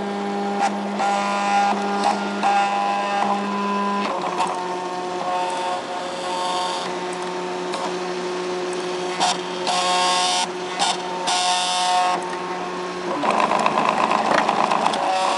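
Stepper motors of a MakerBot Thing-O-Matic 3D printer moving the print head and build platform while printing: a steady whine of several tones that jumps to new pitches as each move changes speed and direction, about four seconds in and again near the end. Short ticks and buzzes fall between.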